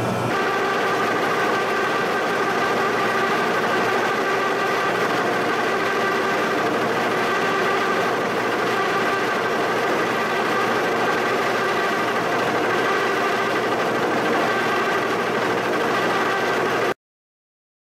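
Giddings & Lewis horizontal boring mill running, its spindle-mounted face mill cutting the face of an old shaper column. A steady machine whine of several tones sits over a hiss of cutting noise, and it cuts off abruptly near the end.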